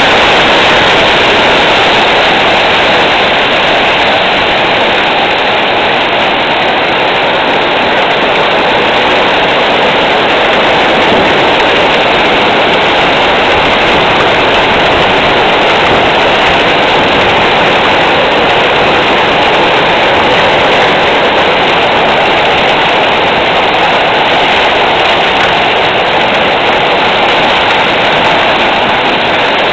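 Heavy hail falling on parked cars and pavement: a loud, steady wash of countless tiny impacts.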